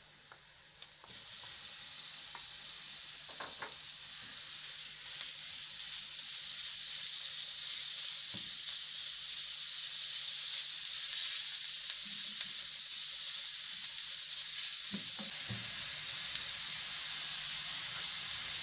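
Raw minced meat frying in oil with sliced onions in a pan. The sizzle starts about a second in as the meat goes in and grows steadily louder. A few short knocks and scrapes come from a wooden spoon stirring it.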